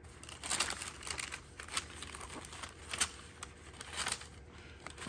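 Papers rustling and crinkling as they are rummaged through by hand, in irregular short rustles, with louder ones about half a second, three and four seconds in.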